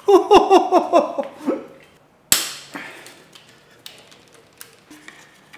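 A man's voice briefly, then one sharp metallic clack about two seconds in and a few faint ticks, from a part and hand tools being handled on a stripped-down engine, as a ratchet is set to a bolt.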